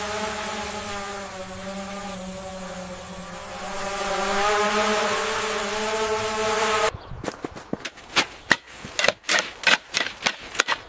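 A small motor or power tool running steadily, its pitch wavering slightly, stops about seven seconds in. A quick, irregular run of sharp knocks and scrapes follows.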